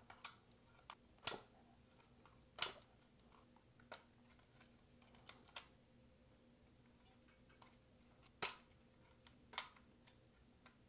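Small plastic wire-to-board connectors being pulled off a circuit board by hand: a series of sharp clicks at irregular intervals, with quiet between.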